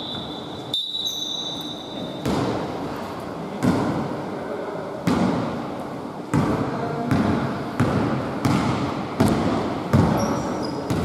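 Basketball dribbled on a hardwood gym floor: repeated bounces that echo around the hall, coming faster in the second half at about one and a half a second.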